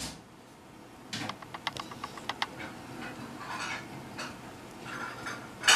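Canon PowerShot S100's lens mechanism clicking and rattling irregularly: the abnormal "karakara" rattle the camera makes while zooming during video recording, a fault that appeared after a few months of use. A sharp, louder click comes near the end.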